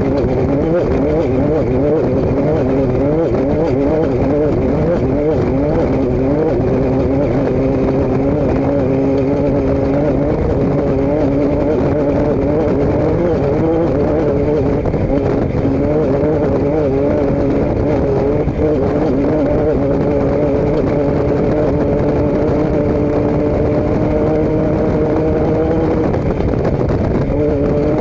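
Motor vehicle engine running continuously over steady road or exhaust noise. Its pitch wavers up and down for the first half, then holds steady from about halfway and drops away near the end.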